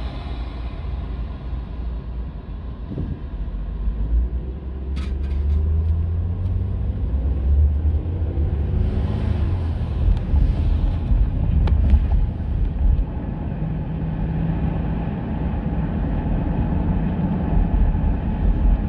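Road and engine rumble inside a moving car's cabin. It grows louder about four seconds in, with two faint clicks, one about five seconds in and one near twelve seconds.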